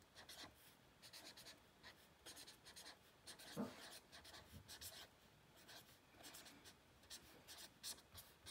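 Faint scratching of a pen across notebook paper in many short strokes as words are written. About three and a half seconds in comes one brief yip from a dog dreaming in its sleep.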